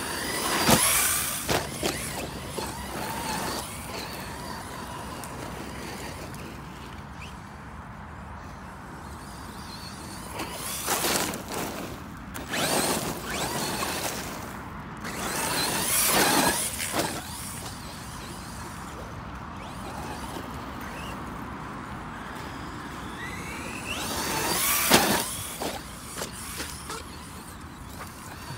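Brushless electric RC car driven in short bursts, its motor whining up and down in pitch as it speeds up and passes about four times, over a steady background of tyre and ground noise.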